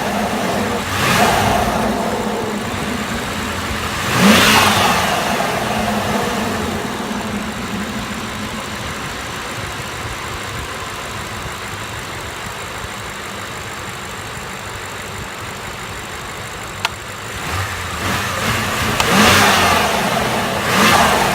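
BMW 750Li's N63 twin-turbo V8 idling, blipped to short revs four times: about a second in, at about four seconds, and twice near the end, falling back to idle after each. A single sharp click sounds a few seconds before the last revs.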